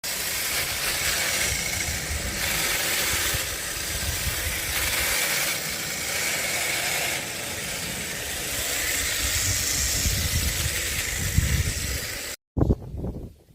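Small petrol engine running steadily with a rough rumble and hiss, cutting off abruptly near the end.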